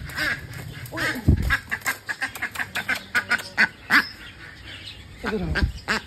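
Ducks quacking repeatedly.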